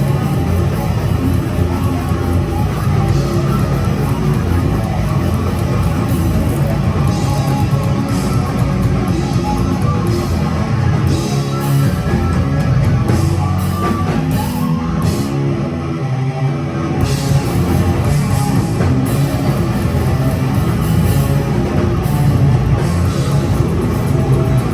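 Death metal band playing live: distorted electric guitars, bass and drums, loud and dense. About fifteen seconds in, the cymbals and low end drop out for a couple of seconds before the full band comes back in.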